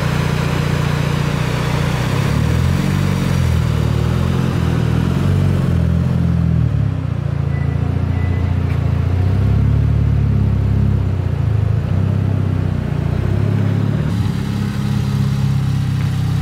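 Mitsubishi Lancer Evolution's turbocharged four-cylinder engine running at low revs while the car is driven slowly and parked in a garage. Its pitch rises and falls a little as it moves.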